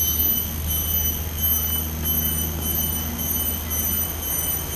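Steady low hum, with a faint high-pitched insect trill that comes and goes in short stretches.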